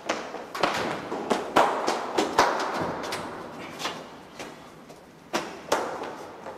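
Hard-soled shoes on a concrete floor: brisk footsteps with a hollow echo, a few steps a second, and two sharper knocks near the end.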